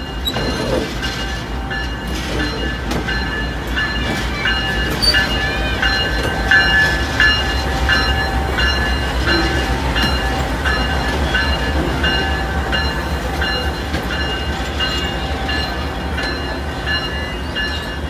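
Dash-9 diesel-electric locomotive rolling slowly past at close range, its diesel engine giving a low pulsing rumble. Steady high-pitched squealing and repeated short squeaks come from the wheels and running gear on the rails.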